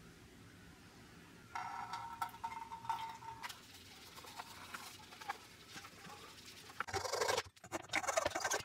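A gloved hand rubbing a liquid finish over a thin wooden panel in a metal tray, with a squeaky, scratchy swishing. Near the end, the loudest part: a hacksaw cutting through a small dowel held in a bench vise, in a few rasping back-and-forth strokes.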